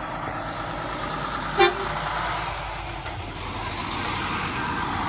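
A single short horn toot about a second and a half in, over the steady running of a combine harvester's engine as it drives past.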